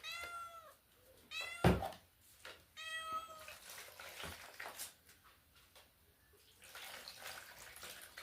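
A domestic cat meowing twice, two short calls that rise and fall, about three seconds apart. A sharp knock falls between them.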